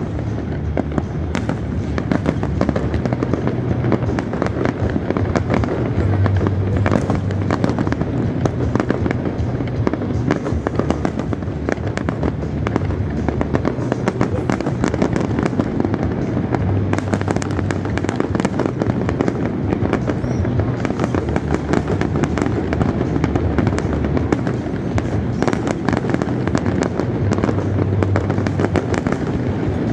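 Aerial fireworks display: a continuous barrage of bangs and crackling bursts, with music playing underneath.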